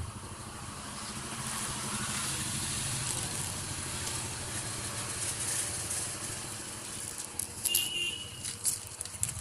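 A motor vehicle passing by, its engine and road noise swelling and then fading over several seconds. Near the end come a few sharp clicks and a short high chirp.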